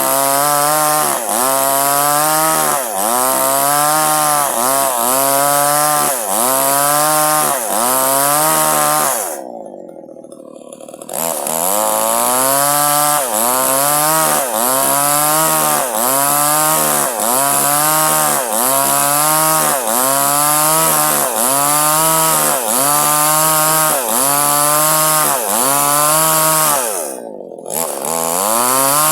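Small two-stroke chainsaw cutting durian wood at high revs, its pitch dipping and recovering about once a second as the chain bites. It drops back briefly twice, about ten seconds in and near the end, then revs up again.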